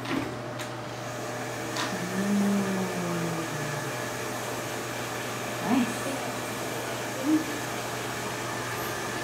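Handheld hair dryer blowing steadily, with a few brief voice sounds over it.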